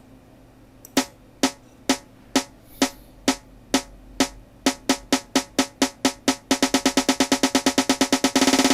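Sampled snare drum playing back an accelerating build-up roll programmed in FL Studio: after about a second of quiet, single hits come about twice a second, then double in speed in steps until near the end they merge into a fast roll.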